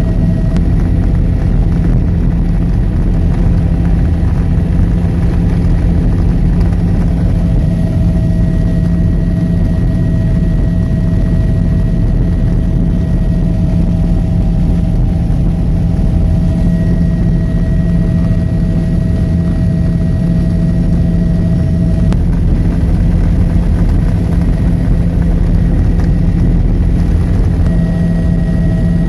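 Helicopter in flight heard from inside the cabin: a loud, steady drone of rotor and turbine with a strong low hum. Faint higher whining tones fade out for a few seconds after the middle and return near the end.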